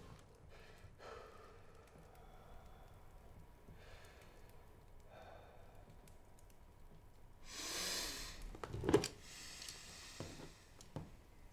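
A man breathing heavily, with one loud exhale about eight seconds in, and a few light knocks and clicks against a table, the sharpest just after the exhale.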